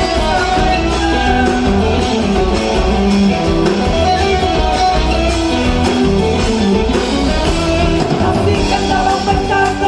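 Song with singing over guitar accompaniment and a steady beat.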